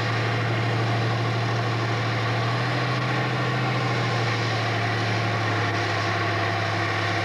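Pulling tractor's engine running under load at a steady, unchanging pitch while it drags a weight-transfer sled.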